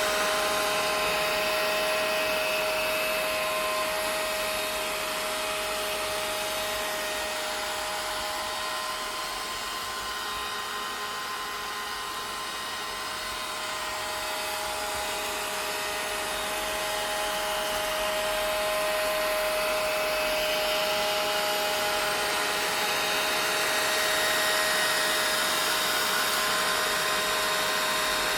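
Vacuum cleaner running steadily: a rush of air with a steady motor whine on top, easing off a little in level around the middle and coming back up.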